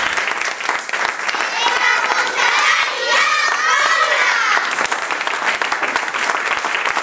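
Audience applauding, with many voices shouting and cheering over the clapping for about three seconds in the middle.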